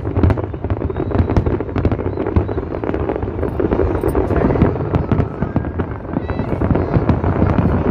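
A large fireworks display going off: a dense, continuous barrage of booms and crackling with no break between bursts.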